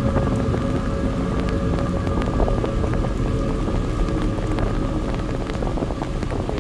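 Heavy rain falling, with many individual drops ticking sharply close by over a steady low rumble.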